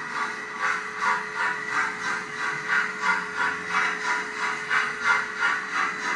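HO-scale model steam locomotive's sound unit playing a steady chuffing with hiss, about two to three puffs a second, as the engine runs slowly. A faint steady hum sits underneath.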